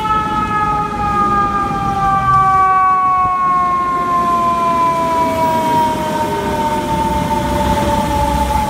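Fire truck siren wailing, its pitch falling slowly and steadily, over the low rumble of the truck and the surrounding traffic.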